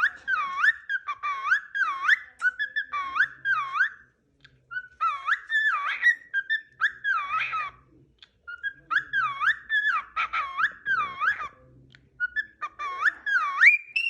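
Cockatiel whistling a learned tune: a swooping whistled note that dips and rises, repeated about twice a second, in four phrases broken by short pauses.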